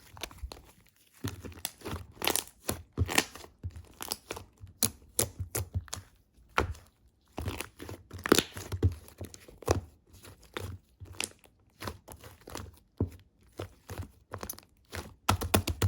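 Slime mixed with shaving foam and foam balls being squeezed and pressed by hand, making irregular crunching crackles and small pops.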